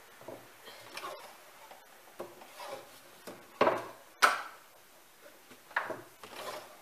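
A wooden board being handled and positioned on a work surface: scattered light wooden knocks and scrapes, with two sharper knocks close together a little past the middle.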